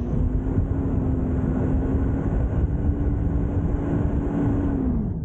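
Toyota Land Cruiser Prado engine pulling hard through soft sand, its note held steady and rising slightly, then dropping away just before the end as the throttle eases.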